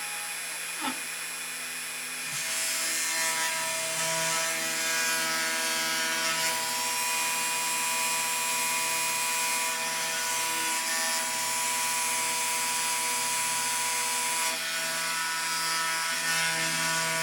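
Home-built CNC engraving machine running: a steady whine of several held tones with a rough cutting noise over it. It gets louder about two seconds in.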